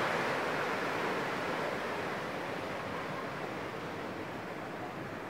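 Waterfall cascading down a rock face: a steady rush of falling water that slowly grows fainter.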